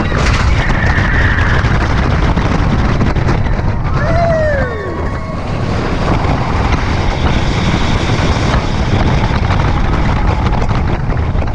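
Wind rushing over the microphone while riding an amusement ride, a loud steady roar. About four seconds in, a rider lets out a brief falling whoop.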